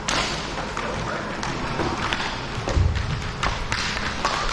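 Ice hockey play: a steady scraping hiss of skates on the ice, sharp clacks of sticks on the puck, and a heavier thud about three seconds in.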